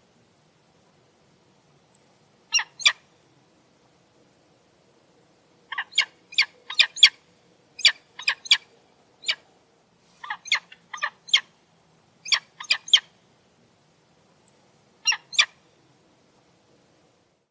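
Falcon calling: short, sharp, high-pitched calls in quick runs of two to five, with pauses of a second or more between the runs.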